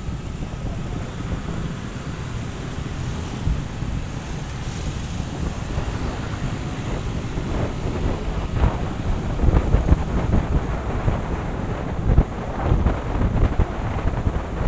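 Wind buffeting the microphone in uneven gusts, growing louder about halfway through.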